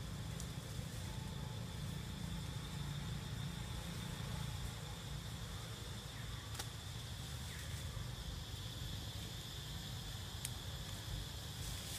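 Forest ambience: a steady high-pitched insect drone over a constant low rumble, with a couple of sharp clicks about halfway through and again near the end.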